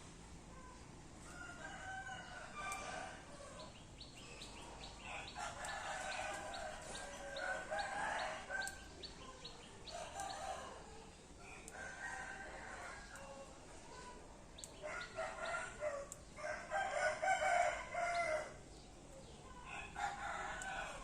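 Rooster crowing several times, each crow lasting a second or two. Between them comes a short run of quick, high ticks a few seconds in.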